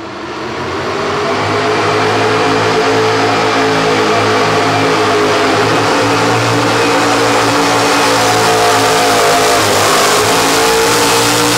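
Economy hot rod pulling tractor's engine running at full throttle under load as it drags a weight-transfer sled. It grows louder over the first second or so, then holds steady.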